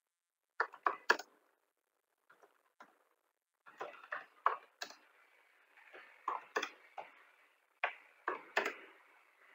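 Computer keyboard typing: irregular sharp key clicks in short runs, with brief pauses between them.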